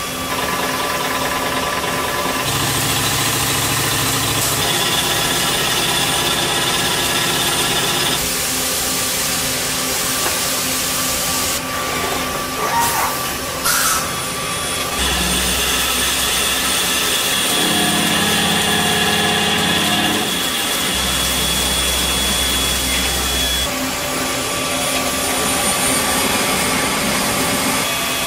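Mazak Variaxis 630-5X II T five-axis machining centre cutting metal: steady machining noise with whining tones from the spindle and drives that switch to new pitches several times as the cuts change from milling to turning and boring. A few short breaks and clicks come around the middle.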